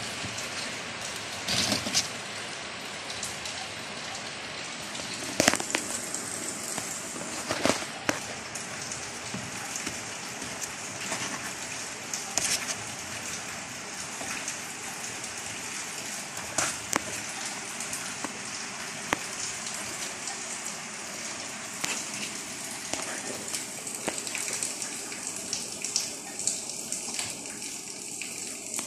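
A steady hiss of noise throughout, broken by scattered sharp clicks and knocks.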